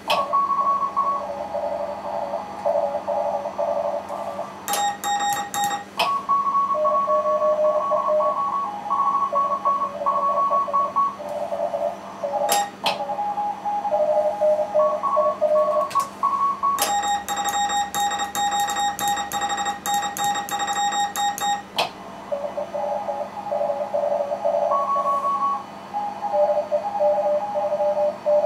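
Morse code (CW) from a shortwave receiver during a contest: several stations' dits and dahs at different pitches, overlapping. Breaking in briefly near the start, again around five seconds in and for about five seconds in the middle, comes a sharper, buzzier keyed tone, the operator's own sending from his paddle.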